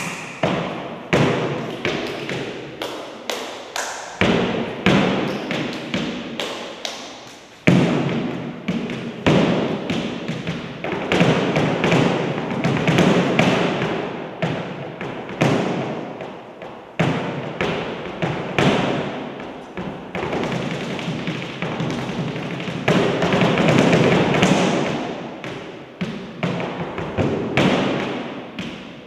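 Flamenco percussion from a seated dancer: heel-and-toe footwork on the stage platform mixed with hand claps and slaps. It comes in uneven bursts, now single sharp strikes, now dense fast runs of taps, each strike ringing on in the room's echo.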